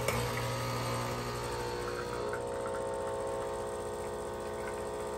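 Nespresso capsule coffee machine brewing: its vibration pump buzzes steadily as espresso runs into the glass. There is a click right at the start, and the buzz eases a little about two seconds in.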